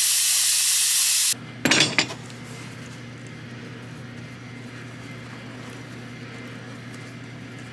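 Siphoning tool hissing loudly as it draws power steering fluid out of the reservoir, cutting off abruptly about a second in. A brief metallic clinking follows, then a low steady hum.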